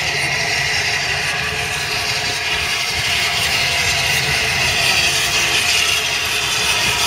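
Steam train led by the Peppercorn A1 Pacific Tornado 60163, arriving on the rails with a steady rumble and rushing noise that slowly grows louder.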